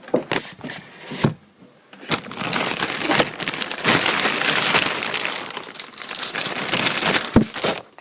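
Packaging crinkling and rustling as a model airplane's fuselage is worked out of its box, with a few sharp clicks at the start and a sharp knock near the end.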